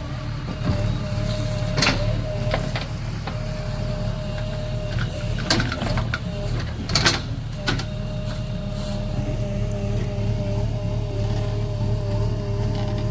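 JCB excavator's diesel engine running steadily under a held higher whine, with several sharp knocks or clanks, the loudest a pair about seven seconds in.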